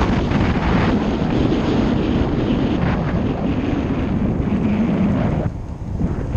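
Wind buffeting the microphone on a moving motorcycle, a loud steady rush with a low rumble beneath it. The rush eases off about five and a half seconds in.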